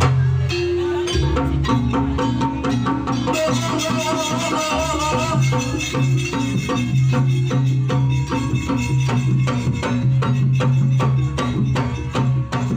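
Live jaranan gamelan music played through a sound system: rhythmic percussion strokes in a steady beat over a sustained deep tone, with a wavering melodic line for a couple of seconds midway.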